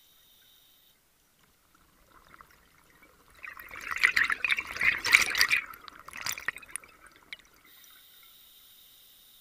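Scuba diver exhaling through a regulator, heard underwater: a gurgling, crackling rush of exhaust bubbles starting about three seconds in and lasting about four seconds.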